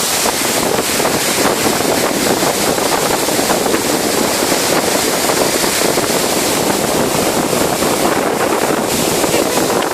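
A car driving through floodwater: a loud, steady rush of water spraying and churning around the tyres and body.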